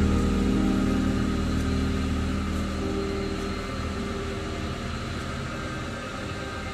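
Background music: one sustained, slowly fading chord.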